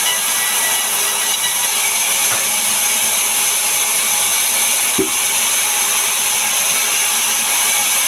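Large vertical band sawmill running steadily, its blade giving a continuous high hiss, with one short knock about five seconds in.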